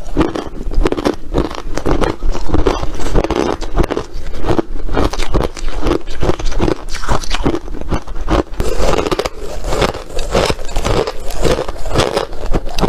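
Crunchy ice being bitten and chewed: a continuous run of crunching and crackling.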